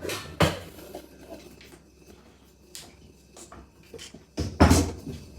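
Kitchen handling noise as a bowl is fetched from the cupboard and set out: two sharp knocks of cupboard and dishware, one right at the start and a louder one about four and a half seconds in, with small clicks and clinks between.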